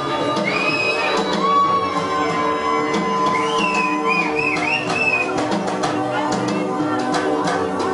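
Electronic music intro with sustained synth tones and high gliding notes, and sharp ticks coming in about five seconds in.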